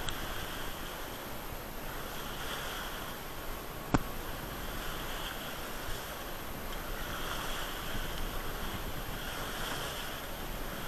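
Water rushing and hissing along the hull of a Westerly Merlin sailing yacht under sail, swelling and fading every two to three seconds as the bow wave surges, with wind. A single sharp click about four seconds in.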